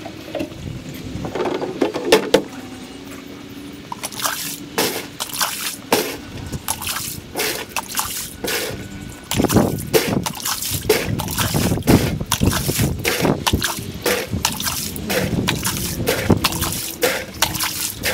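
Water trickling, dripping and sloshing as an above-ground pool is drained through a hose, played back at four times normal speed, so it comes as a dense run of quick splashy clicks that grows busier about four seconds in.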